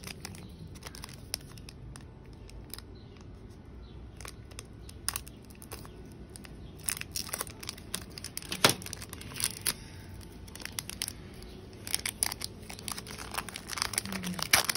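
Foil wrapper of a Pokémon booster pack crinkling and crackling as it is cut open and handled and the cards are slid out. Irregular sharp crackles grow denser in the second half, with one loud crackle past the middle.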